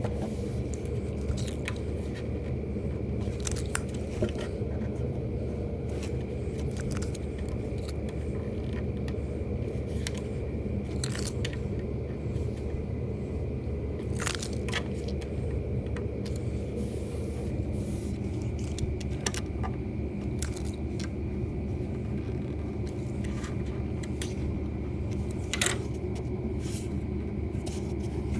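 A wooden cabinet being shifted and nudged on a solid wood top, giving scattered light knocks, clicks and scrapes, loudest about four seconds in, near the middle and near the end. A steady low hum runs underneath throughout.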